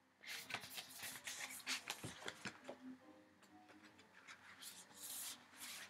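Paper pages of a picture book rustling and crinkling as they are handled and turned, in a quick run of small rustles and clicks, then fewer near the end.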